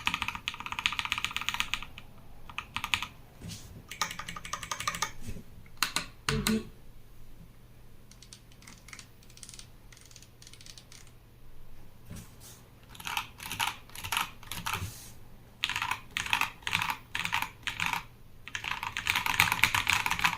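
Typing on a Nextime 75 custom mechanical keyboard fitted with lubed Kailh Box Burnt Orange tactile switches and PBT keycaps. Fast bursts of keystrokes alternate with slower single key presses, with evenly spaced strokes in the latter part. There is one heavier, deeper key thump about six seconds in.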